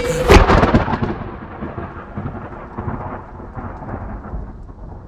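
Thunder-clap sound effect: a loud crack about a third of a second in, then a rumbling, crackling tail that slowly dies away.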